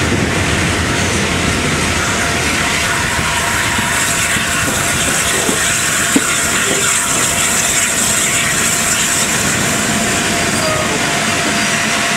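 Steady running noise on the footplate of BR Standard class 8 Pacific No. 71000 "Duke of Gloucester" under way, a continuous mix of wheel, motion and steam noise, with one sharp knock about six seconds in.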